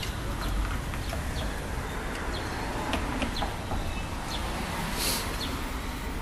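Street ambience: a steady low rumble of traffic and wind, with short high bird chirps scattered throughout.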